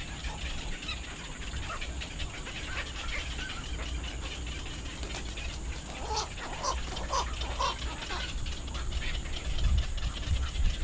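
Birds calling in short, scattered notes over a steady low rumble.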